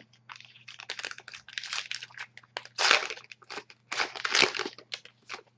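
Crinkling and rustling of trading cards and their wrapping being handled, a string of short scratchy rustles that is loudest about three and four and a half seconds in. A faint steady hum runs beneath.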